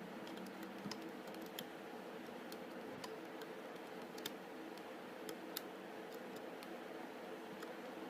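Scattered light clicks and ticks, irregular and spaced apart, over a steady low hum and hiss.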